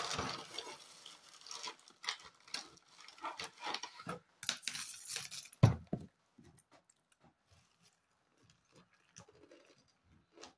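Crinkling of a cornflakes packet and clicks of a spoon against a steel bowl of milk, with a sharp thump about five and a half seconds in; after that only faint scattered ticks.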